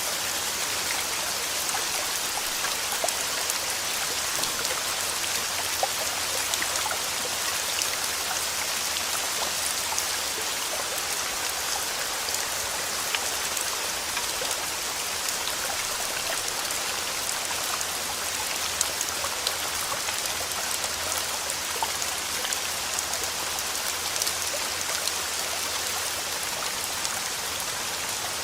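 Steady rainfall: a continuous hiss of rain with many small drops ticking on surfaces.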